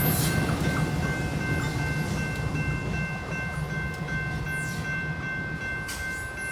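Diesel freight train running by: a steady low engine rumble, with a few steady high tones over it and faint light ticks.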